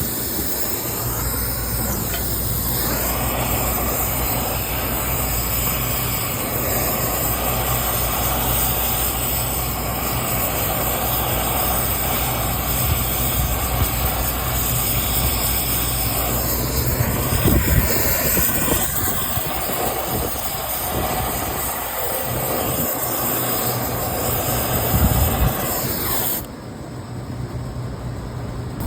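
Steady mechanical running noise with a low hum and a hiss, with a few knocks along the way. The hiss cuts off suddenly a couple of seconds before the end.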